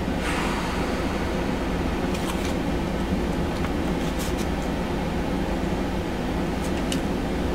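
Steady room noise, a constant hum and hiss, with a few faint light clicks.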